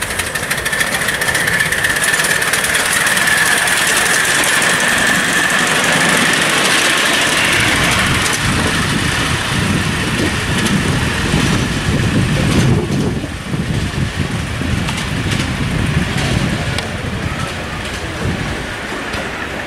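Miniature railway locomotive running along the track: a steady high whine for the first several seconds, then a lower uneven rumble from about eight seconds in.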